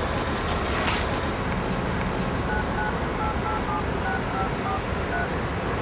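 Phone keypad tones as a number is dialled: about nine short two-tone beeps in quick succession, over steady background traffic noise.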